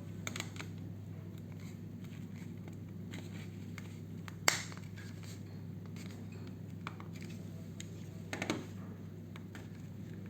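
Plastic case of a TV remote being handled and pressed together, its snap-fit locks clicking into place: scattered light clicks and scrapes, with a sharper click about four and a half seconds in and another around eight seconds, over a steady low hum.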